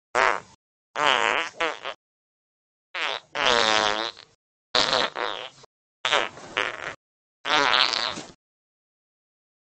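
A series of six imitation fart noises: buzzy, pitched raspberry-like blasts, each about a second long or less, separated by silent gaps.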